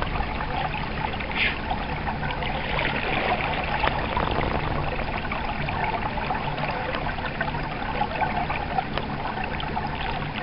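Stream water running steadily, an even trickling rush of flowing water.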